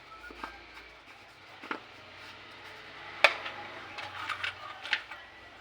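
Scattered clicks, taps and light scraping of tools and parts being handled on a workbench, with one sharp click a little past halfway and a few quicker taps near the end.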